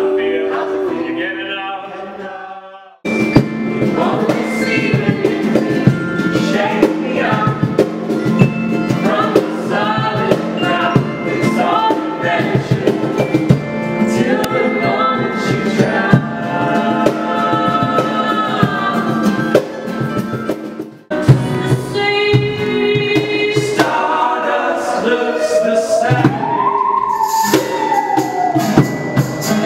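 Live acoustic band music: several voices singing together over acoustic guitar, with some percussion. The music cuts abruptly to another passage about three seconds in and again about twenty-one seconds in, and near the end a high voice slides up and down.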